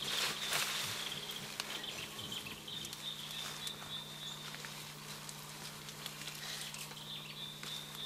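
Leaves rustling and stems crackling as mountain gorillas move and feed in dense undergrowth, busiest in the first second or so. A high steady trill comes and goes behind it.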